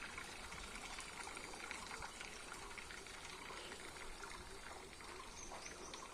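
Faint, steady trickling and lapping of water, with a few faint high chirps near the end.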